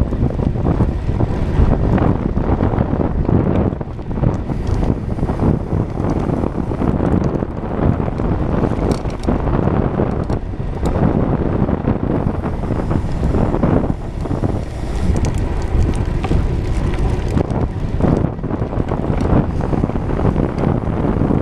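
Wind buffeting a chest-mounted GoPro's microphone as a road bike descends at speed: a loud, steady rumble, broken by scattered short knocks.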